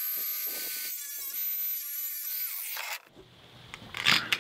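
Small cordless cut-off grinder running with a steady high whine, then spinning down with falling pitch and stopping about three seconds in. A few light clicks of handled metal pipe near the end.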